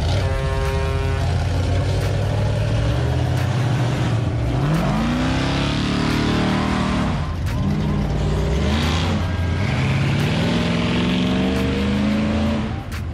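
A vehicle engine revving, its pitch rising and falling several times over a steady running drone.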